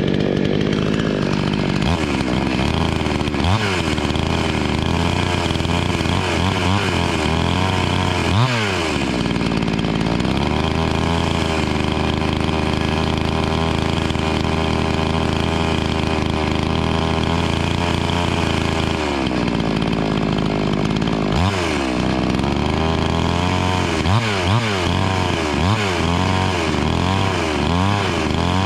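Pinkway PKW-63ACK 63cc two-stroke chainsaw running during its first run and tuning. The throttle is blipped again and again, then held at a steady high speed for about eight seconds in the middle, then drops back and is blipped repeatedly again.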